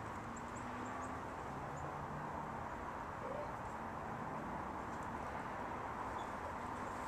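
Steady outdoor background noise with a low hum underneath, and a few faint, high-pitched chirps, mostly in the first couple of seconds.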